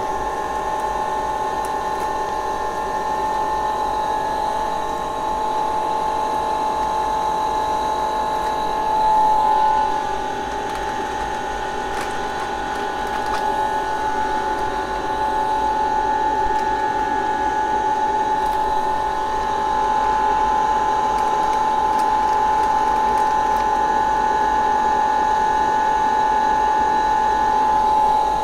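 Steady mechanical whine of a running machine, several held tones at once, with a small shift in pitch about nine seconds in.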